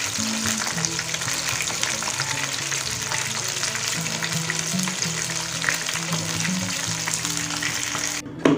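Flour-coated small wader fish deep-frying in hot oil in a pan, a steady dense sizzle and crackle that cuts off abruptly near the end.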